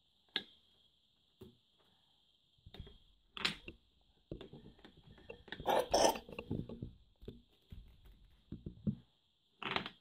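Wooden toy knife tapping and knocking on a wooden cutting board and a wooden toy fish, in scattered clicks. About halfway through comes a denser run of scraping and a short rasping rip as the hook-and-loop Velcro holding the fish halves together pulls apart.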